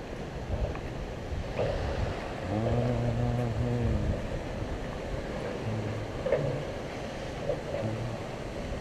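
Wind on the microphone and sea water lapping against a stone harbour wall. About two and a half seconds in there is a brief low hum lasting a second and a half.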